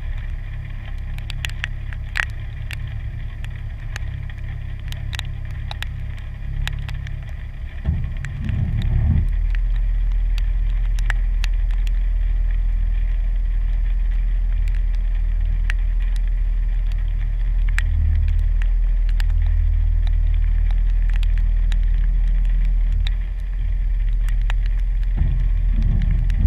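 The 3.6-litre V6 of a stock 2015 Jeep Wrangler Sport idling as a steady low drone, with scattered sharp ticks of raindrops hitting the camera housing. About eight seconds in the low rumble gets louder and stays up.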